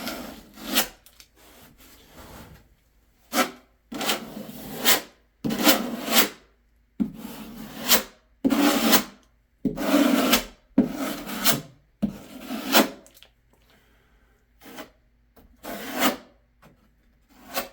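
About a dozen irregular scraping strokes, each under a second, as a spreading tool smooths waterproofing sealant over the seams and fastener heads of foam shower backer boards.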